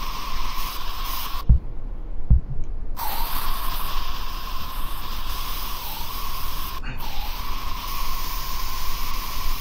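Sculpting app's paint-tool sound effect: a steady spray-like hiss with a constant tone in it, switching on and off as the trigger is held and released. It cuts out for about a second and a half about a second and a half in, and again briefly about seven seconds in. Two soft low thumps fall in the first gap.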